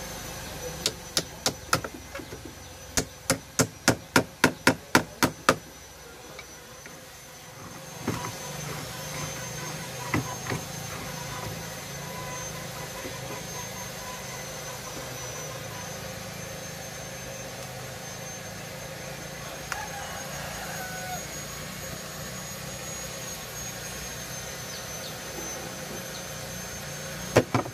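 Sharp clicks as a spool of flux-core welding wire is fitted and turned by hand on its holder: a few at first, then a quick even run of about ten at roughly four a second. After that come a few single knocks and light handling noise, over a steady high whine.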